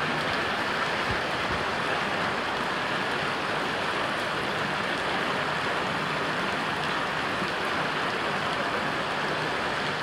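Heavy thunderstorm rain pouring down, with floodwater running along the street, making a steady, unbroken hiss.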